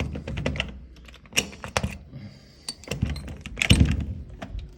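Key being turned and worked in a deadbolt lock: a run of sharp metallic clicks and key rattles, with a heavier dull knock a little before the end.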